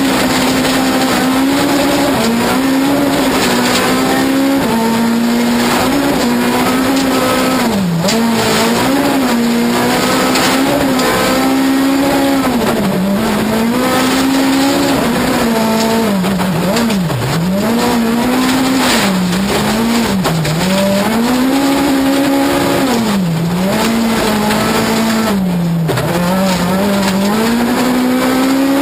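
Ford Fiesta S2000 rally car's two-litre four-cylinder engine heard from inside the cabin, held high in the revs with its pitch dropping sharply and climbing back again every couple of seconds as the driver lifts and shifts, over a steady noise of tyres on gravel.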